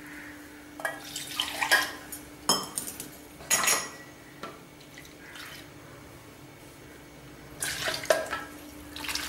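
A metal utensil clinking and scraping against a cooking pan in a few short clusters, several in the first four seconds and again near the end, over a steady low hum.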